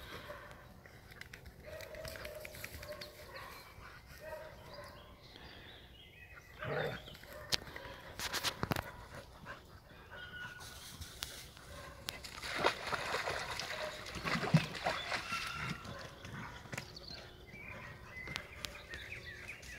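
Two Jagdterriers playing rough: scuffling with dog noises. Past the middle comes a spell of splashing as one dog goes into shallow water.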